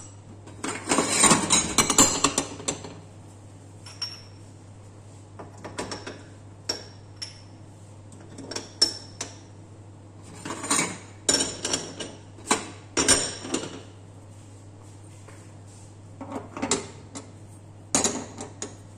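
Metal gas-stove burner parts clinking and clattering as they are handled and set back onto the burners, in several separate bursts. The longest run of clatter comes about a second in, another comes in the middle, and a few single clanks fall in between.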